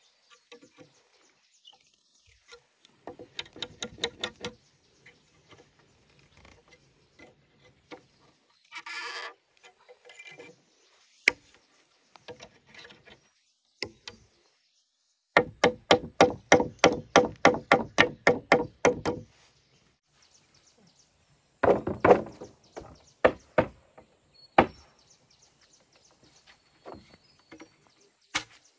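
Quick repeated chopping or knocking blows, a run of about five strikes a second lasting a few seconds, with shorter clusters and single knocks before and after.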